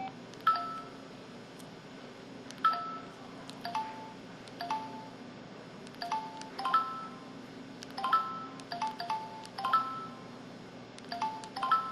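Samsung SCH-E250 mobile phone keypad being pressed about fifteen times at an uneven pace. Each press gives a click and a short two-note dialing tone.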